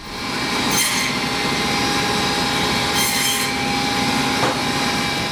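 Hobart meat band saw running with a steady whine while cutting meat, with two brief brighter hisses about one and three seconds in.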